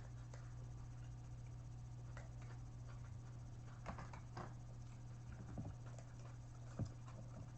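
Faint clicks and scrapes from eating and handling takeout food containers, a few scattered ones, over a low steady hum.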